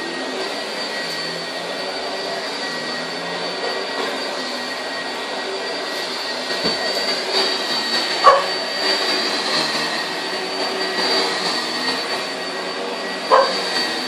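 Upright vacuum cleaner running steadily on carpet, its motor giving a constant high whine. Two brief squeals cut through it, about eight seconds in and again near the end.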